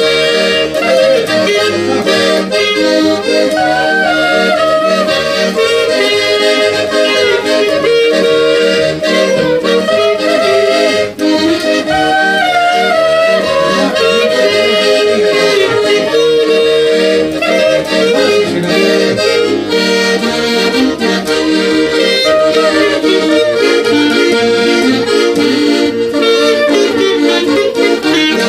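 Traditional folk music led by an accordion, sustained chords under an ornamented melody, playing without a break.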